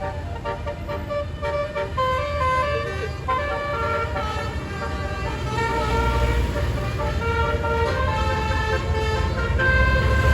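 Basuri telolet horn on a bus playing a fast tune of short notes that step quickly from pitch to pitch, over and over. A low engine rumble runs underneath and grows louder about six seconds in and again near the end.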